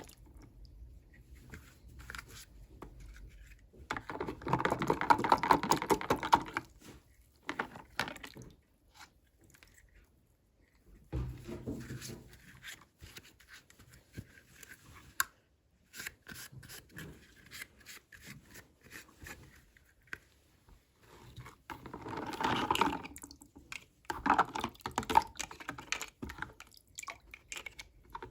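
Toy packaging being handled and opened by hand: several bursts of crinkling and rustling, with scattered small clicks in between.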